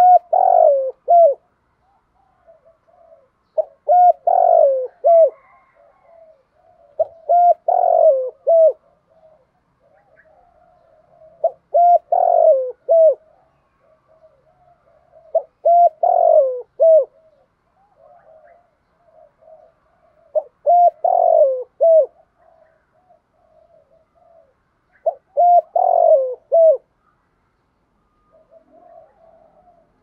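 Spotted dove cooing its song: seven phrases about four seconds apart, each a short run of coos lasting a second or so, softer near the end. This is the male's advertising call, used here as a decoy call to draw wild spotted doves into answering.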